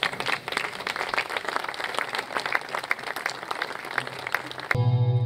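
Crowd applauding, many hands clapping. It cuts off abruptly near the end, and music starts.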